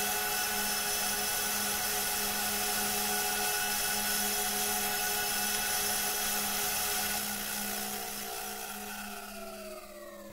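Closing sustained electronic drone of the background music, a chord of many held tones that stays steady, then fades out with all its pitches sliding slowly downward from about three-quarters of the way through.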